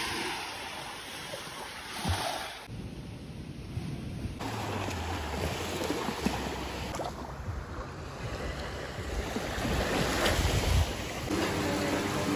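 Small sea waves breaking and washing up on a sandy shore, with wind buffeting the microphone at times. Near the end the surf gives way to a steady hum.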